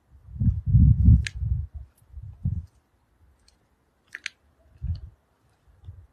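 A run of muffled low thumps and bumps in the first three seconds, then two more single thumps near the end, with two brief sharp clicks about one and four seconds in: handling and movement noise on a phone's microphone.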